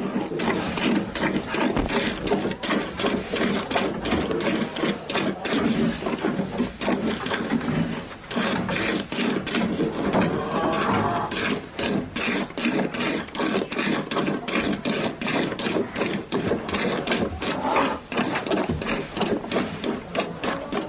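A cow being milked, most likely by hand: quick, rhythmic squirts of milk into a pail, several a second.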